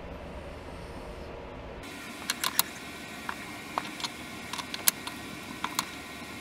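Irregular sharp clicks and ticks, about a dozen, starting about two seconds in, over a steady hiss. They come from a rear differential's pinion and parts being turned slowly by hand with a beam-type torque wrench to read its rotational torque.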